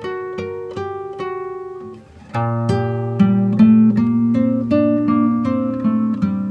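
Instrumental background music of plucked-string notes picking out a melody. About two seconds in, after a brief dip, a fuller, lower backing comes in under it.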